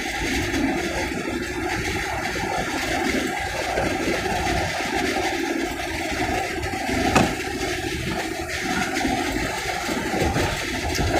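Steady rushing road and engine noise inside a moving car's cabin, with a single sharp click about seven seconds in.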